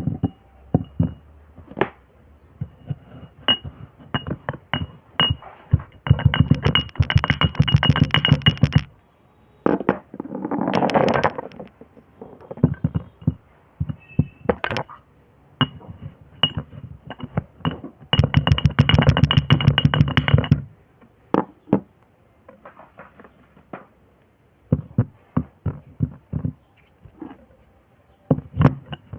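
Kinetic sand being handled: a series of soft taps and crunches, with two longer stretches of dense, fast crackling about six and eighteen seconds in, and a smoother rushing sound about ten seconds in.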